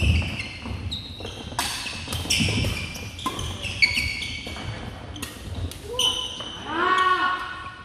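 Badminton rally: rackets smacking the shuttlecock about once a second, mixed with sneakers squeaking on the hardwood gym floor. Near the end a player's voice calls out.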